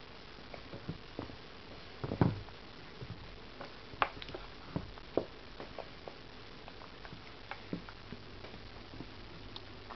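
Scattered small clicks and knocks, with one louder thump about two seconds in: a baby gnawing and mouthing raw squash and zucchini, the vegetables bumping against a plastic high-chair tray.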